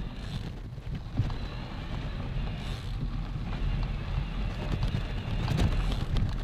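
Mountain bike riding over a rough gravel trail: tyres crunching and the bike rattling, with a low wind rumble on the microphone.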